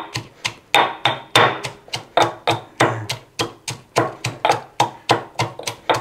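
Pestle (ulekan) pounding and grinding shallots and garlic in a mortar (cobek), a steady run of sharp knocks at about three a second, making a coarse spice paste.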